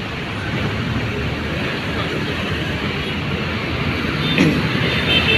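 Diesel intercity bus engine running steadily amid terminal traffic noise, with a short rise in pitch near the end.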